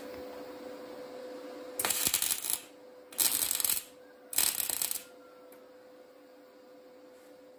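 MIG welder laying three short tack welds on steel square tubing, each a burst of arc crackle lasting about half a second to under a second. The welds come about two seconds in, a second later, and again a second after that. A steady hum carries on underneath.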